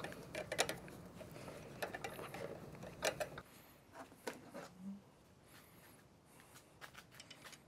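Scattered light clicks and knocks of a metal folding hinge being handled on a plywood desk. After about three and a half seconds it turns quieter, with only a few isolated taps.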